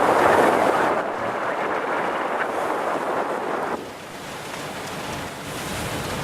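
Steady rushing of wind and sea on the microphone, with no distinct tones; it drops a step about a second in and falls off sharply near the four-second mark, then carries on lower.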